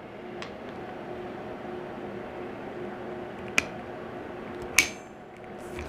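Two sharp clicks about a second apart as a second flexible rod of a rotary chimney-cleaning kit is snapped into its locking connector, the second click with a brief metallic ring. A steady low hum sits under them.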